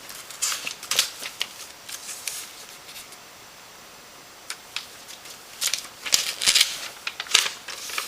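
Irregular clicks and rustles from objects being handled at close range: a scattering in the first couple of seconds, then a denser cluster from about five and a half to seven and a half seconds in.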